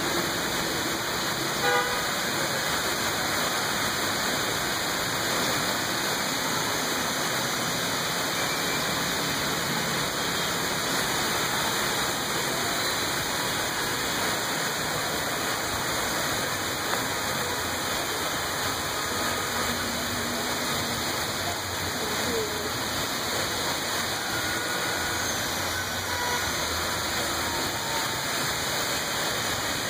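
Steady rain pouring down over a busy street, with traffic and a few short car-horn toots, the loudest about two seconds in.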